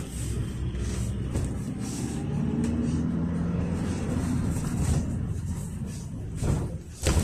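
Cabin noise inside a moving GAZelle Next minibus: the steady low rumble of its Evotech 2.7-litre four-cylinder petrol engine mixed with road noise. Two sharp knocks come near the end.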